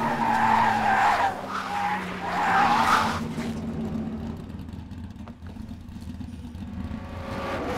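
Race car tyres screeching under hard braking, in repeated squealing skids over the first three seconds, then dying down to a quieter low rumble.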